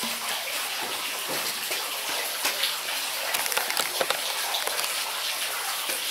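Steady sound of running water, with a few light clicks and knocks from handling things about halfway through.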